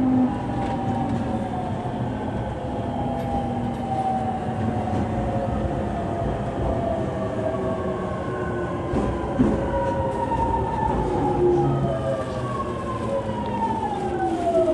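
JR East 209 series electric train's MT68 traction motors whining, several tones sliding slowly down in pitch over rumbling wheels on the rails. Near the end the tones fall steeply as the train slows.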